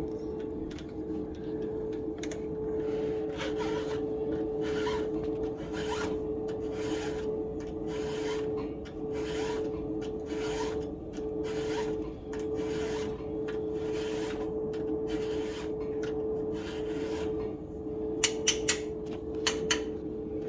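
Flat file being stroked across the cutter teeth of a full-chisel chainsaw chain, a steady run of rasping strokes about one and a half a second. A steady hum runs underneath, and a few sharp clicks come near the end.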